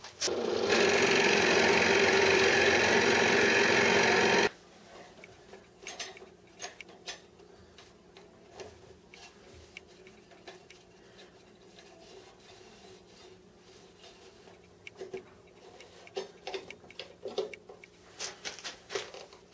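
Electric drill boring deeper into a wooden block, running steadily for about four seconds and stopping suddenly. Then quiet handling sounds: small taps and rubs as the lamp cord is worked through a slot in the wood.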